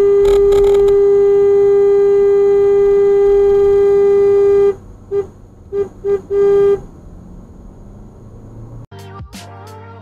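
Single-tone car horn: one long steady blast lasting several seconds, then four quick toots. Music starts near the end.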